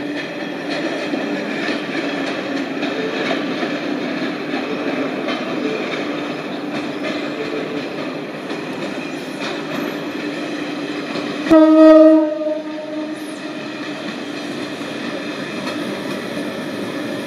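Renfe series 442 electric train running slowly into the station, a steady motor hum and rail rumble, with one short horn blast about two-thirds of the way through, the loudest sound.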